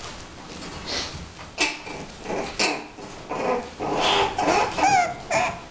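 Six-week-old bulldog puppies yipping and whining as they play-wrestle: a run of short, pitch-bending calls starting about a second and a half in and growing busier, with a wavering whine near the end.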